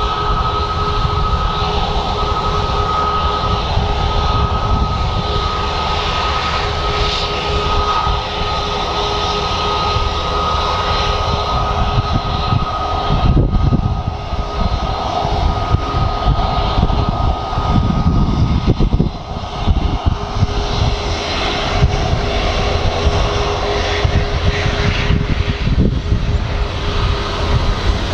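Airbus A350's Rolls-Royce Trent XWB turbofan engines running at low power as the airliner rolls on the ground: a steady jet whine over a broad rush and uneven low rumble, which shifts about halfway through and settles again.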